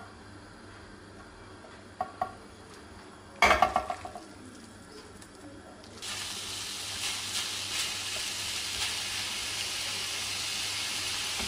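Minced turkey escalope frying in margarine in a nonstick frying pan: a steady loud sizzle that starts suddenly about six seconds in, stirred with a silicone spatula. Before that the pan is quiet apart from a few light clicks and a short clatter about three and a half seconds in.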